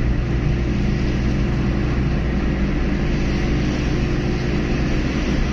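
Honda Civic Wonder cruising at a steady speed, heard from inside the cabin: a steady engine drone mixed with tyre and road noise.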